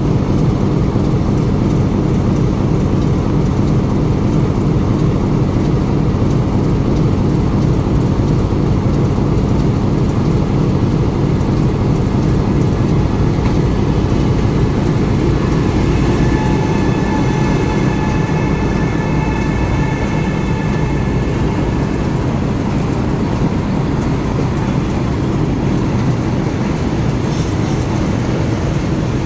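Locomotive running steadily, a continuous low hum. For several seconds past the middle, a faint high whine of a few steady tones sits on top of it.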